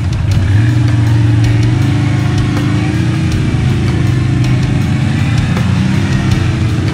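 Can-Am ATV engine running steadily, its pitch rising and falling slightly.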